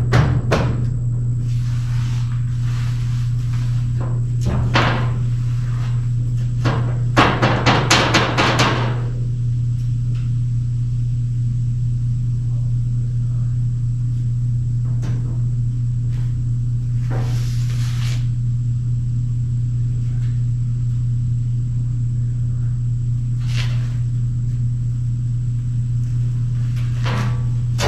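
Metal-shop work on steel: scattered clanks and knocks over a steady low hum, with a quick run of six or seven hammer blows on steel about seven seconds in.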